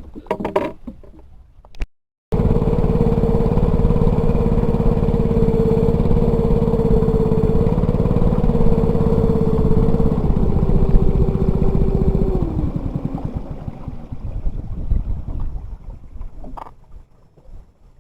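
A small engine running loud and steady, starting abruptly after a brief silent gap. Its pitch steps down twice, about ten and twelve seconds in, and it then fades away.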